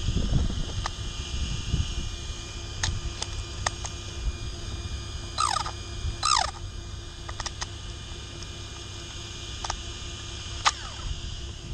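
Small sharp clicks and knocks as the RC truck's spur and pinion gears are handled by hand, with a low rumble of wind on the microphone near the start. About halfway through, two short falling chirps are the loudest sounds.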